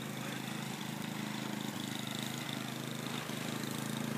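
A motor vehicle engine running steadily at an even pitch.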